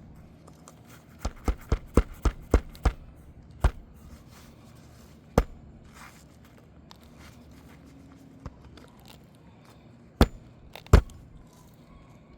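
A hammer striking roofing nails through asphalt shingles: a quick run of about seven blows, then single blows spaced a second or more apart, two of them near the end.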